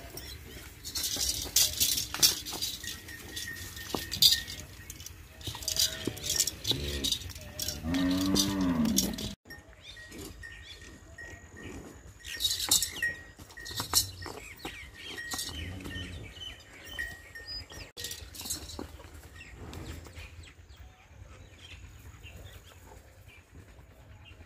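Holstein-Friesian dairy cows: one cow gives a long moo, rising then falling in pitch, about eight seconds in, and a fainter moo follows later. Repeated sharp metallic clinks and knocks fill the first half.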